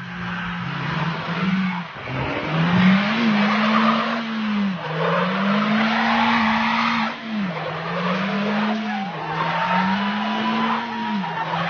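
A car engine held at high revs while the tyres spin and squeal on dirt, the engine note climbing and dropping back about every two seconds. A thin, steady tyre squeal rises out of the noise in the second half.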